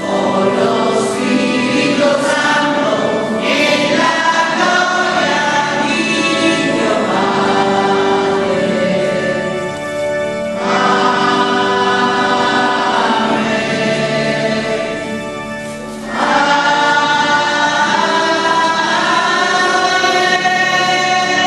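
Church choir singing sacred music, with held notes and short breaks between phrases about ten and sixteen seconds in.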